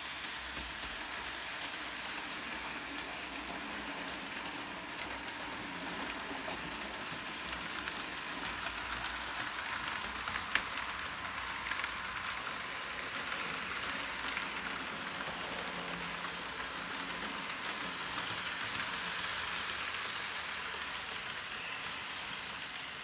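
Model trains running on the layout's track: a steady running noise of wheels on the rails and small motors, with a single sharp click about ten seconds in.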